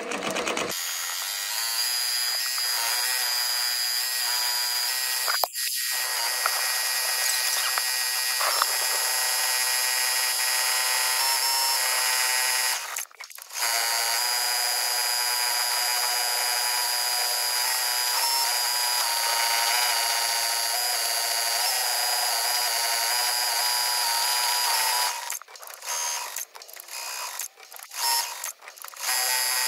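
Multi-needle embroidery machine stitching, fast-forwarded so its needle run becomes a steady high buzz. The sound drops out briefly about halfway and several more times near the end.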